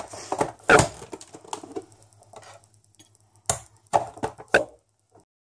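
Sharp plastic clicks and knocks from a hand-pressed vegetable dicer with a wire blade grid, handled while dicing a boiled potato: a loud clack about a second in and a quick run of clacks near the end.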